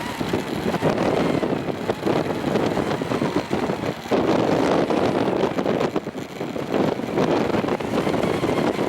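Strong gusting wind buffeting the microphone, a heavy rumbling rush that surges in gusts about a second, four seconds and seven seconds in.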